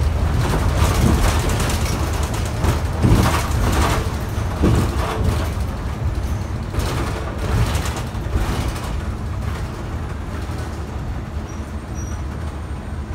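2019 New Flyer XD60 articulated diesel bus under way, heard from inside: steady engine and road rumble with frequent rattles and knocks from the body. It grows gradually quieter through the second half.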